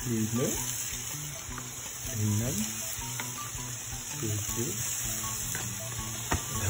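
Meatballs frying on a hot flat metal pan, a steady sizzle.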